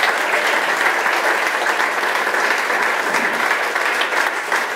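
Audience applauding steadily: many people clapping at once in a dense, even patter.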